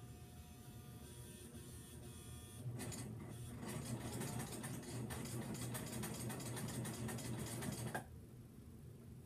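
Electric home sewing machine running a seam: it starts stitching about three seconds in, runs steadily for about five seconds, and stops abruptly near the end.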